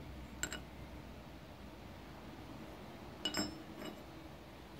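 Metal clinks from a steel L-shaped drain-plug key: a couple of light clicks against the oil drain plug about half a second in, then a louder, ringing clink as the key is set down on a concrete floor about three seconds in, with a lighter tick just after.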